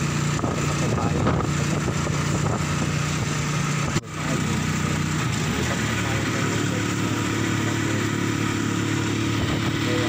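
Motorcycle engine of a Philippine tricycle running steadily as it carries passengers along the road. The sound drops out for an instant about four seconds in, and soon after the engine note settles to a lower, steady pitch.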